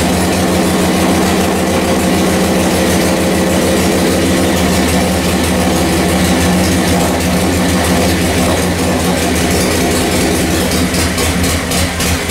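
A 45-cubic-inch flathead V-twin motorcycle engine running steadily on its first fire after being built up.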